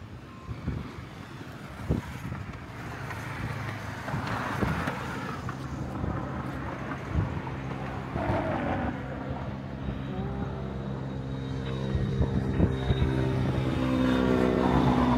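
Steady engine drone that grows louder over the last several seconds, with wind buffeting the microphone and a few light handling knocks.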